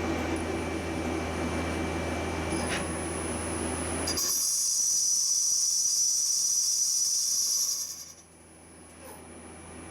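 Machine tool cutting cast iron with coated carbide inserts. A low machine hum runs for about four seconds, then switches abruptly to a loud, steady, high hiss of the cut, which drops away shortly before the end.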